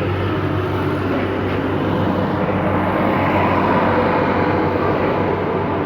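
A motor or engine running steadily, with a constant low hum and a whine that rises a little partway through.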